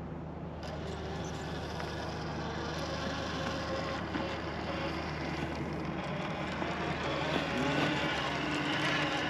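Traxxas TRX-4 Land Rover Defender RC rock crawler's electric motor and geared drivetrain whining at crawling speed. The pitch shifts with the throttle, and the whine grows louder as the truck approaches.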